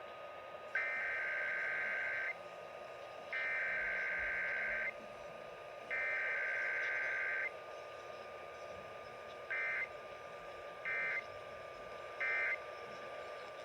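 Emergency Alert System SAME data tones: three buzzy digital header bursts of about a second and a half each, then three short end-of-message bursts. They come through AM radio with steady hiss and a faint steady whistle underneath.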